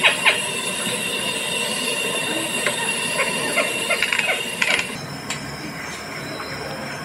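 Recorded bird call played through a museum exhibit's speaker: a fast run of calling notes cuts off just after the start, followed by faint scattered clicks and a steady high electronic tone from the playback. The tone changes about five seconds in, as the display moves to its next recording.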